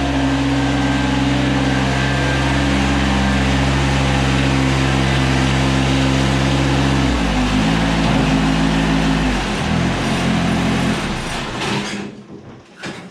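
John Deere 755 compact tractor's three-cylinder diesel engine running at a steady speed. About seven seconds in, its speed drops in steps, and it stops near the end.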